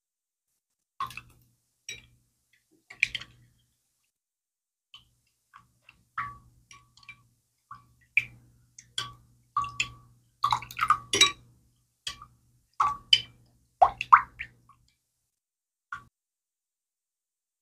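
An irregular series of short clicks and light knocks, some with a brief ring, thickest in the middle of the stretch and sparse near the start and end, with silence between them.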